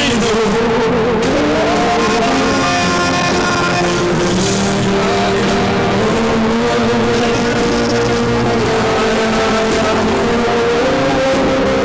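Slow worship music with held chords under a wavering melody line, which glides up in pitch about a second and a half in.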